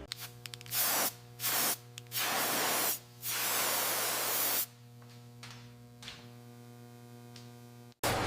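Four bursts of loud hissing, the longest about a second and a half, over a steady low hum; after the last burst only the hum remains, and near the end the sound cuts sharply to a different steady noise.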